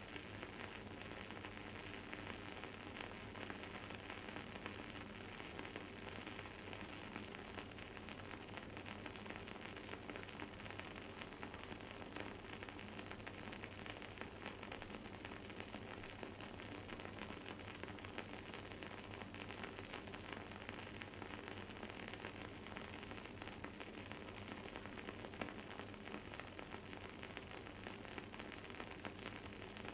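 Wood-wick candle burning with a soft, continuous crackle and sizzle: many fine pops over a steady hiss, with one sharper pop about three quarters of the way through.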